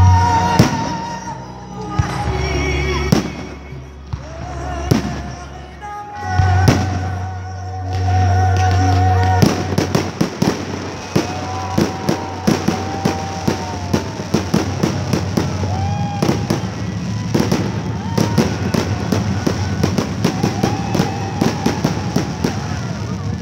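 Fireworks bursting, with a Christmas song playing underneath. First a few separate loud bangs, then from about ten seconds in a dense run of rapid crackling pops from crackle shells.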